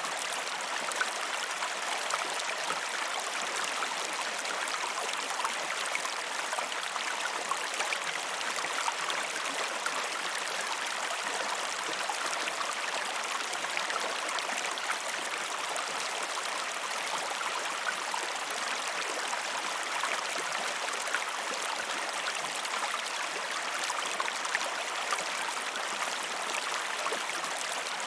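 Steady rush of flowing river water, with fine splashing and gurgling and no change in level.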